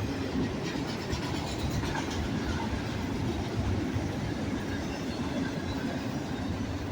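BNSF train passing at high speed: a steady rumble of wheels on the rails.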